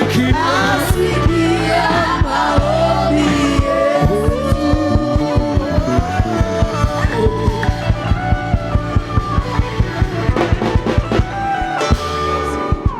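Praise-and-worship music: singing voices over bass and a steady, evenly spaced drum beat.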